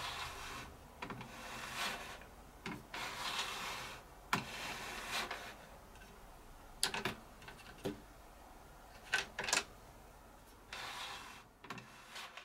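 Handling noise from a drill press fence's clamping hardware: intermittent scraping and rubbing with several sharp clicks at uneven intervals, as the plastic knob and steel T-bolt are worked in the aluminium frame slot.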